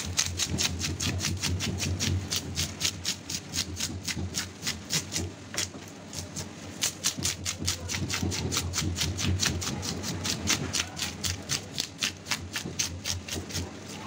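A parrotfish being scaled by hand: a scraping tool rasps the large scales off in quick strokes, about five a second, with a short pause about six seconds in. A steady low hum lies underneath.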